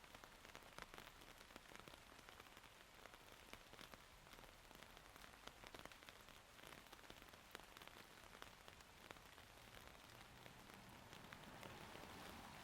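Faint, steady rain falling, a soft hiss full of tiny drop ticks, swelling slightly near the end.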